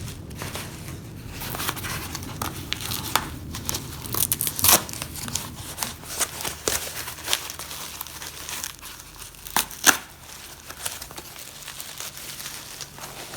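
Packing wrap crinkling and tearing as it is pulled off by hand, a continuous crackle with sharper rips, the loudest about four and a half and ten seconds in.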